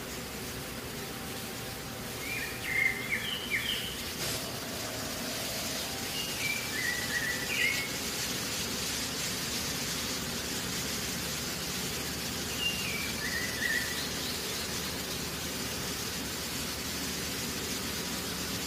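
Birds chirping in three short spells a few seconds apart, over a steady outdoor background hiss.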